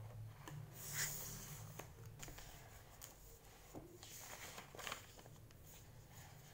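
Faint rustling and soft clicks of notebook paper being handled as pages are turned, with a louder rustle about a second in.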